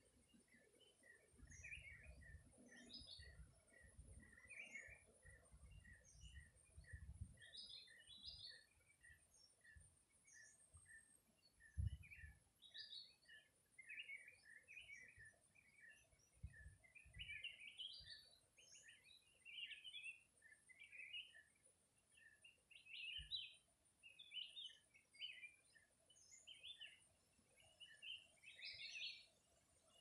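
Faint chirping of small birds: many short high calls, some repeating about twice a second, busier toward the end. Low rumbles sound in the first several seconds, and a single thump comes about twelve seconds in.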